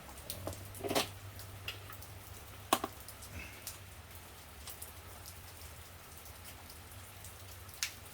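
Steady rain falling, with a low steady hum, broken by a few sharp clicks and knocks of e-bike brake parts being handled and refitted, the loudest a little under three seconds in.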